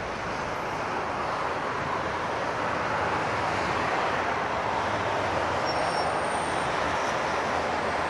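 Road traffic on a multi-lane road below: a steady hiss of tyres and engines from passing cars and vans, getting a little louder after about three seconds.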